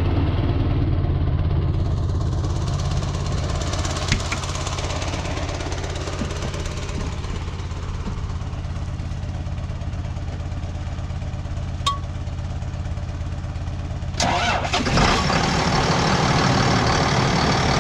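An engine running steadily with a low drone. About fourteen seconds in, a louder, rougher noise starts and carries on over it.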